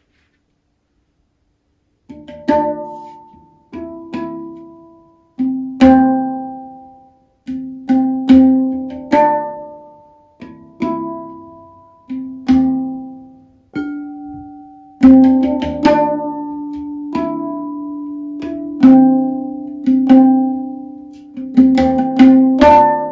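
Handpan being played by hand: a steady melody of struck steel notes, each ringing and dying away, starting about two seconds in. From about fifteen seconds in, a low note rings on under the others.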